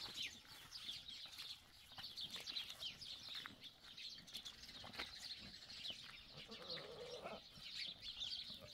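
Faint farmyard ambience: small birds chirping quickly and repeatedly throughout, with a brief lower farm-animal call about seven seconds in.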